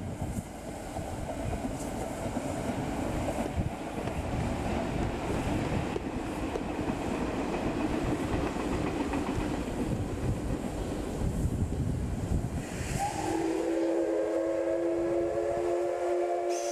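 Steam locomotive's whistle blowing one long, steady chord of several pitches, starting about three-quarters of the way through. Before it there is a low rumbling noise.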